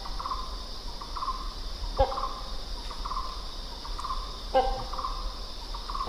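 Hornbill calling: a loud harsh call comes twice, about two and a half seconds apart, with shorter trilling notes repeating in between. Behind it runs a steady high drone of insects.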